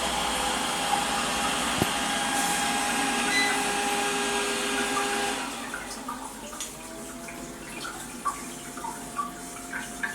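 Coway BA13 electric bidet seat running: a steady whirring hiss of its pump and water spray that stops about halfway through, followed by scattered small ticks.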